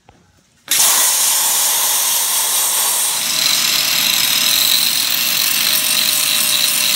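Angle grinder starting up about a second in and grinding the end of a 3-inch steel exhaust pipe, freehand shaping a cope so the pipe fits the fire pot; a loud, steady grinding with a high whine.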